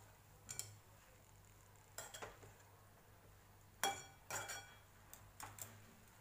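Metal perforated spatula clinking and knocking against the sides of a metal kadhai while chopped fenugreek leaves are stirred, a series of light clinks in small clusters about a second apart.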